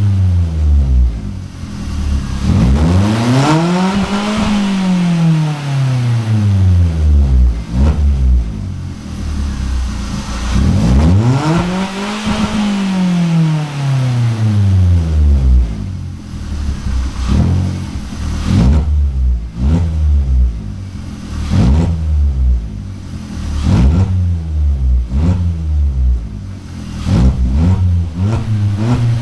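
Opel Astra 1.4's four-cylinder petrol engine revved through its exhaust: two long slow climbs and falls in pitch, then a run of short, quick throttle blips.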